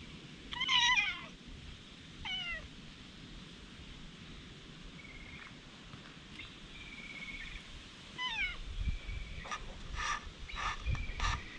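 A cat meowing: a loud falling meow about half a second in, a shorter one about two seconds in, and another a little after eight seconds. Faint short high tones fall between them, and several short knocks come near the end.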